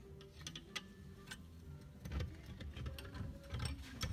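Light, irregular metallic clicks and ticks from a bearing puller and wrench being worked on a Vincent Black Shadow's aluminium crankcase half to draw a bearing off the crankshaft. The clicks get busier, with low knocks, about halfway through.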